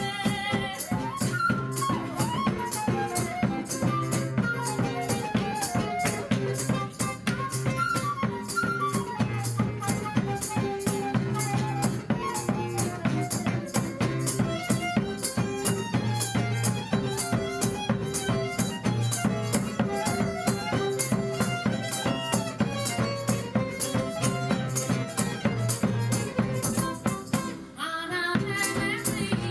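A live Macedonian folk band plays: violins carry a wavering melody over guitar and a steady, busy drum and rattle rhythm, with a woman singing. The music drops out briefly about two seconds before the end, then comes back in.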